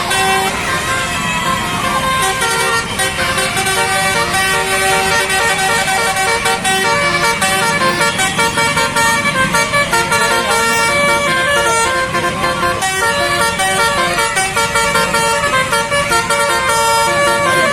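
Bus 'telolet' musical horn, a set of electric horn trumpets sounding a long run of quick changing notes like a tune, pulsing in rapid short toots for much of it.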